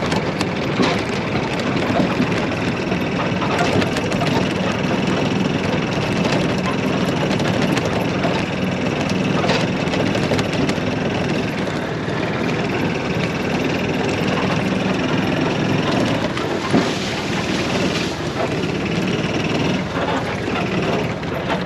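Golf cart engine running steadily under way, with scattered clicks and rattles as the cart rides over rough ground.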